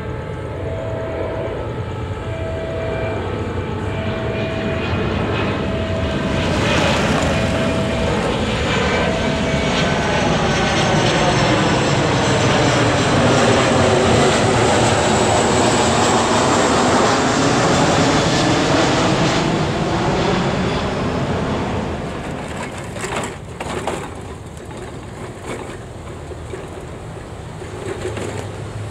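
Level crossing warning alarm beeping at one steady pitch about once a second. A diesel multiple unit train passes the crossing: its running noise builds, is loudest about halfway through, then falls away.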